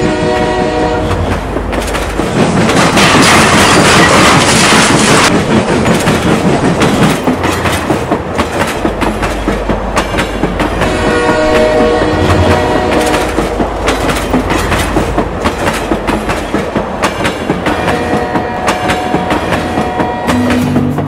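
Steam locomotive whistle blowing a chord three times: at the start, about halfway through, and near the end. A loud hiss of steam a few seconds in lasts about three seconds. In between, a fast regular clicking rhythm of the running train.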